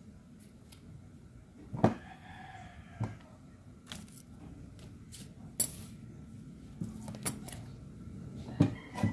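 A rooster crows once about two seconds in, a single call of just over a second that rises and falls. Around it come scattered short knocks and scrapes of a peeler and knife against a cutting board as a wedge of squash is peeled.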